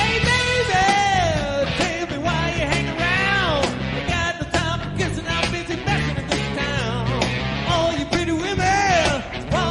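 Rock and roll band music with a steady beat, under a sung lead line that slides up and down in pitch.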